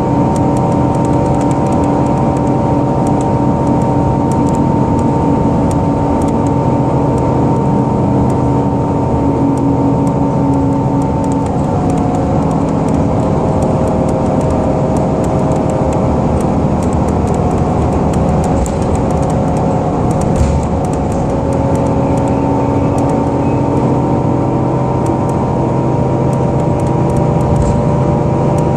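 Cabin sound of a 2010 Gillig BRT transit bus under way: engine and drivetrain running with a steady whine over road noise, the whine changing pitch about twelve seconds in and again about twenty seconds in.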